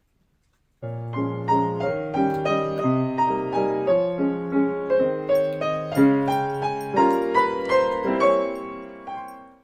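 Background piano music: a gentle melody of single notes over a low bass note, starting about a second in and fading out near the end.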